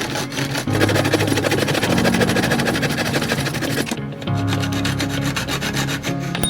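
Background music with held bass notes that change every second or two, over a continuous rasping, rubbing noise.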